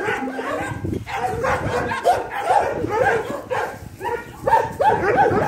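Dogs yipping and barking in play, a quick run of short rising-and-falling yelps, thickest near the end.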